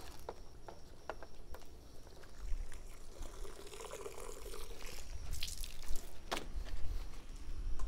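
Water trickling and splashing as a car is hand-washed with a wet, soapy microfiber wash mitt, with a few small clicks and knocks along the way.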